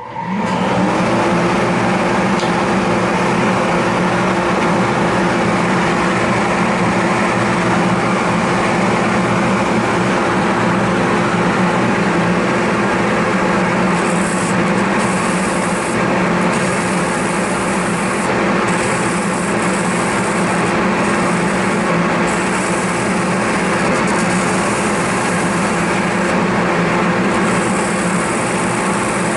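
A dust collector and the motor of a French wheel (a spinning abrasive wheel) start up together and run steadily, with a motor tone that climbs and settles just after the start. From about halfway a high hiss comes and goes in stretches of a second or two, as the vulcanite pipe stem is pressed against the abrasive wheel.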